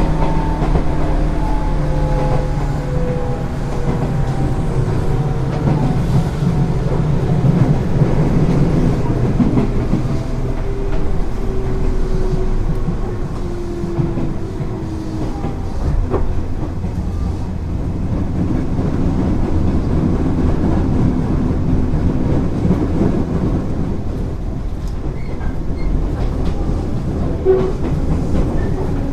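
Onboard running sound of a JR 205 series electric train: traction motor and gear whine falling steadily in pitch over the first half as the train slows, then the rumble of wheels on rail.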